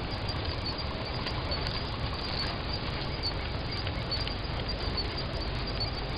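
Open grassland ambience: a steady even hiss with faint, short high ticks scattered throughout.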